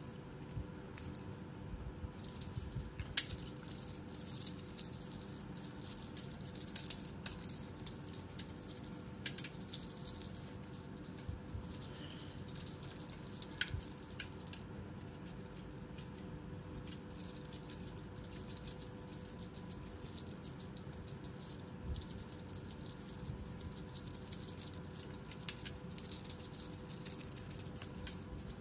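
Kittens scampering and scuffling on dry dirt: light scattered patter and rattling, with a few sharp ticks, the loudest about 3 and 9 seconds in.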